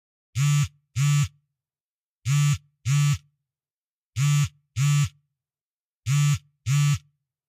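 A low electronic buzz sounding in short double pulses, four pairs about two seconds apart, silent between them.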